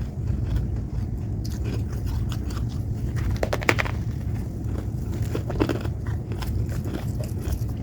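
Freezer frost being bitten and chewed close to the microphone: a run of small crisp crunches and crackles, with a louder crunch a little past the middle, over a steady low hum.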